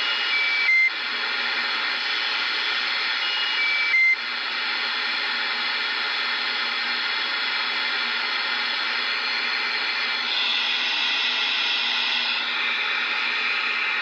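Superstar 3900 CB radio receiver hissing with static from its speaker. Twice, about a second in and about four seconds in, there is a short falling three-note roger beep, each cut off by a brief burst as a distant station ends its transmission. The hiss turns brighter near the end.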